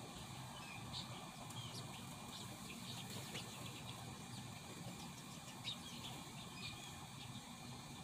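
Birds chirping and calling in short, scattered notes, over a faint steady insect drone and a low hum.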